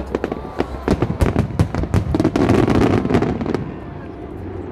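Fireworks display: a rapid run of bangs and pops, with a dense crackling barrage from about two seconds in that thins out near the end.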